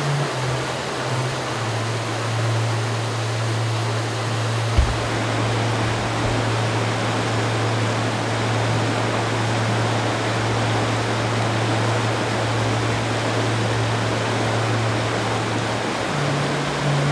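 A brook's water rushing steadily, with low held notes underneath that change pitch twice, once near the start and once near the end. There is a single short knock about five seconds in.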